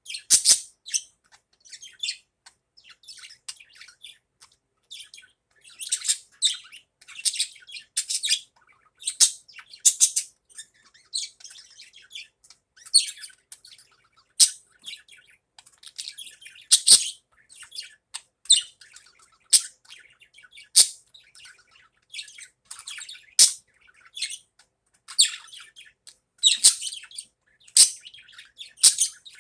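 Budgerigar chattering: a continuous stream of short, high chirps and warbles with the odd louder squawk.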